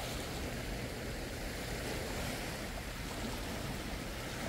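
Small sea waves lapping and washing against a stone ledge, a steady rush of water.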